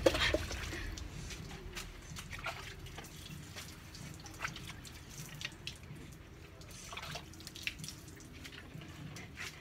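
Water dripping and splashing in small, irregular spatters during a dog's bath.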